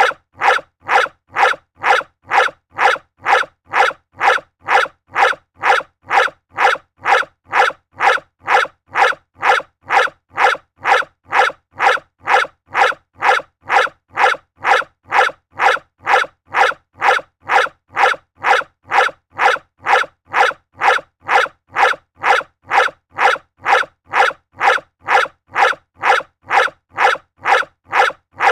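A dog barking over and over in a perfectly even rhythm, about two barks a second, every bark alike, like a single bark repeated in a loop.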